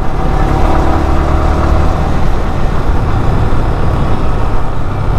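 A vehicle engine running steadily under a dense, even rushing noise.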